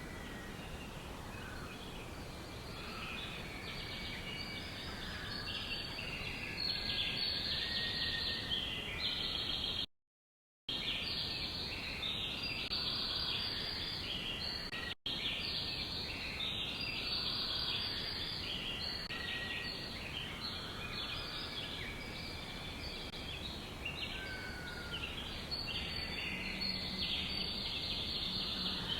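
A chorus of many small birds chirping, dense and overlapping. The sound cuts out completely for under a second about ten seconds in.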